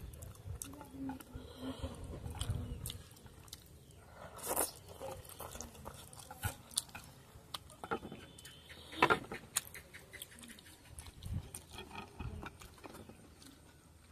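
A person slurping and chewing a mouthful of instant ramen noodles, with scattered sharp clicks through the chewing.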